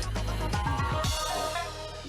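Electronic music with a heavy bass beat. About a second in, the bass cuts out and the high tones slide downward and fade.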